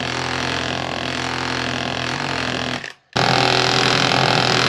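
Cordless power tool running steadily at a copper boat nail, cutting it back over its rove. It cuts out sharply about three seconds in, starts again a moment later, and stops near the end.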